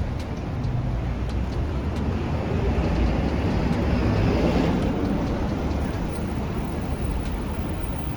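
Vehicle noise: a steady low rumble with a passing swell that builds to a peak about four seconds in and then fades.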